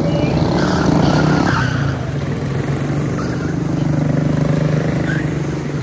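A pack of quarter midget race cars running at racing speed, their small single-cylinder Briggs & Stratton Animal engines buzzing together. The sound swells as cars pass close about a second in, and again around four seconds.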